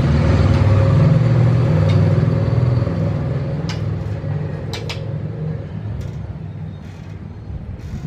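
A motor engine running with a steady low hum that fades away over the last few seconds. A few short, sharp clicks come about four, five and six seconds in.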